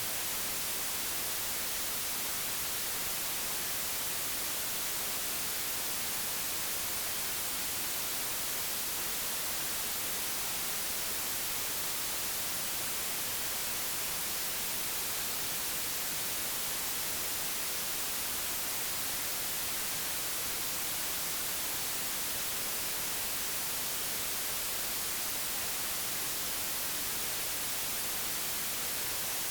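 Digitally generated white noise: a steady, even hiss that does not change.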